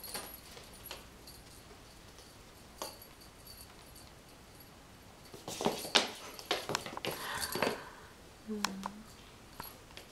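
A kitten scrabbling and pouncing after a feather wand toy on a wooden floor: scattered light clicks and knocks of paws, claws and the toy on the boards, with a busy flurry of scuffling and taps about six to eight seconds in.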